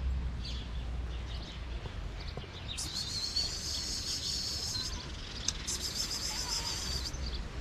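Outdoor birdsong: scattered faint chirps, then two long, high buzzing trills, the first about three seconds in and the second shorter, over a steady low rumble.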